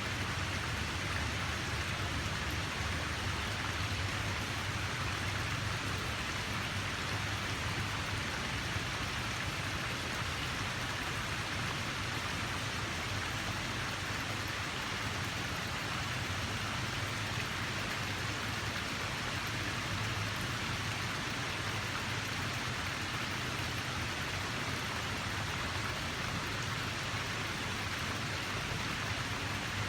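Steady rushing water: an even, unbroken hiss with a low rumble beneath it, never rising or falling.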